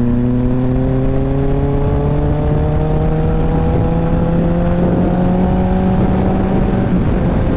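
Honda CBR650F's inline-four engine pulling under load, its note rising slowly as the bike gains speed, with storm wind buffeting the microphone. About seven seconds in the rising note breaks off and settles lower.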